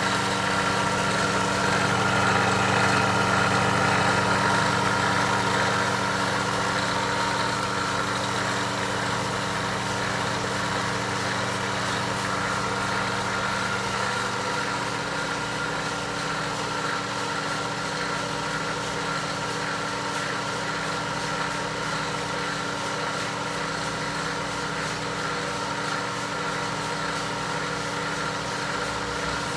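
Roots blower driven by a motor salvaged from a pool pump, running steadily: a low electric hum with a higher whine above it, a little louder in the first few seconds.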